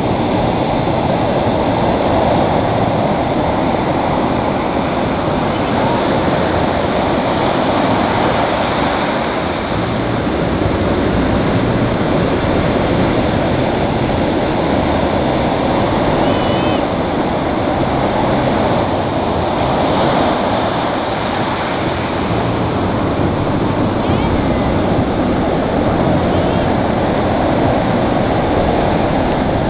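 Ocean surf breaking and washing up a sandy beach: a loud, steady rush of water and foam that swells and eases slightly as each wave runs in.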